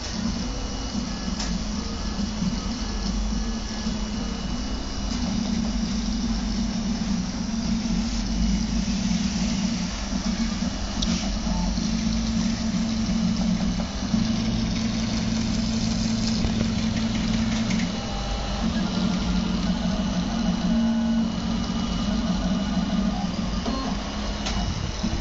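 RepRap Prusa Mendel 3D printer running a print: its stepper motors give a steady low hum whose pitch shifts every second or few seconds as the moves change.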